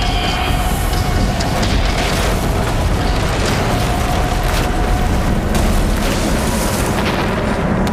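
Film sound effect of a boat being blown up with gunpowder: a continuous deep rumble of booms with several sharp blasts, with dramatic music underneath.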